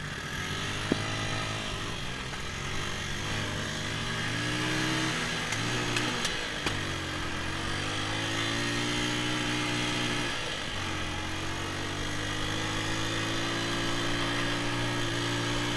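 Small dirt bike's engine running under way as it is ridden. Its pitch rises and falls with the throttle, sagging and picking up again about five seconds in and dropping briefly near ten seconds before holding steady.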